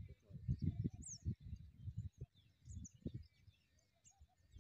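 Irregular low buffeting rumble, like wind on the microphone, with small birds chirping faintly now and then.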